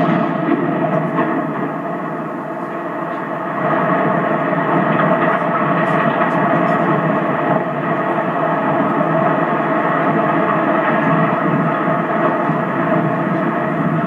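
Explosive demolition of a steelworks blast furnace: a long, continuous roar and rumble as the detonation's noise rolls on and the furnace structure collapses, growing louder again about three and a half seconds in.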